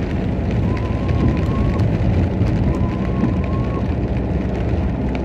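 A car driving on a rain-soaked road, heard from inside: steady engine and road rumble with tyre hiss on the wet tarmac and rain ticking on the car. A faint squeak comes back about every two seconds, each lasting about a second.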